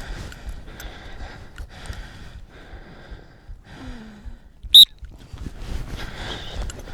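One short, sharp blast on a dog-training whistle about five seconds in: a handler's signal to a retriever working a retrieve. Beneath it is a steady rustling and crunching of movement through the field.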